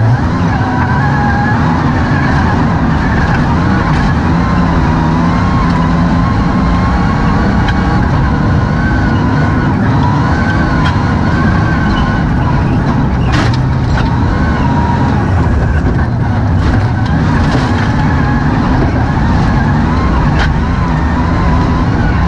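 Inside the cabin of a MINI John Cooper Works Buggy rally-raid car driving fast over a desert dirt track: the engine runs steadily under load with a wavering high whine above it, and the car knocks and rattles over bumps, with a sharp knock about halfway through and another near the end.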